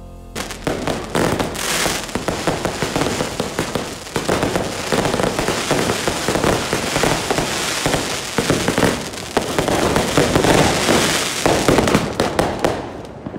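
Fireworks going off in a dense, continuous crackle of many overlapping bangs, growing louder towards the end.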